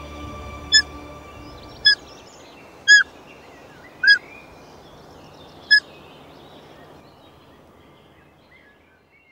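Birdsong in the open: a short, clear high call repeated five times about a second apart over fainter twittering, while the last of the background music dies away. Everything fades out near the end.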